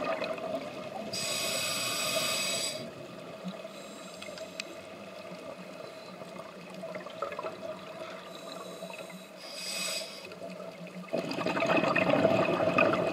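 Scuba diver breathing through a regulator underwater: a rush of exhaust bubbles at the start and again near the end, with two shorter hisses of breathing in between.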